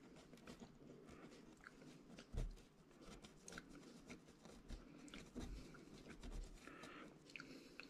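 Faint scratchy dabbing of a thin paintbrush stippling watered-down paint onto modelling-compound ground, with a soft low bump about two and a half seconds in.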